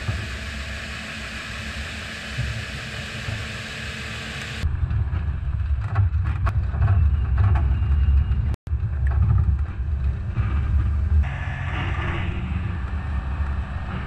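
Semi truck pulling a grain trailer, heard from beside its rear wheels: a deep steady rumble of diesel engine and tyres on a rough lane, with wind hiss on the microphone over the first few seconds. The sound changes abruptly several times, with a brief dropout about halfway through.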